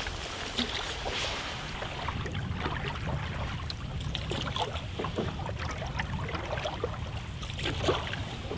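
Canoe paddle strokes dipping and splashing in choppy water beside a cedar strip canoe, with wind rumbling on the microphone. One louder splash comes near the end.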